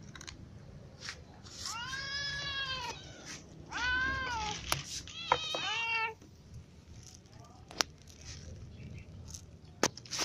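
A cat meowing three times, long calls that rise and then fall in pitch, with a few sharp clicks in between and after.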